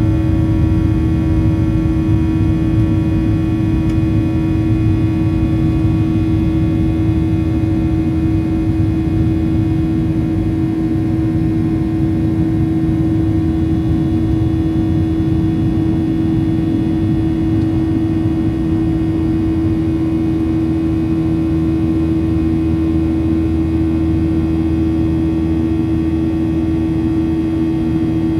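Boeing 737-800's CFM56-7B jet engines running steadily: a loud, constant drone with one strong, even hum tone over a low rumble.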